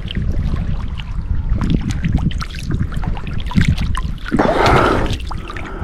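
Wind buffeting the microphone over splashing, sloshing water, with a louder splash-like rush about four and a half seconds in.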